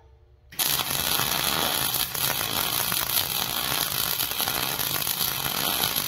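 Carbon arc gouging on the steel of an excavator bucket, the arc struck about half a second in: a loud, steady crackling hiss of the arc and its air blast cutting the metal.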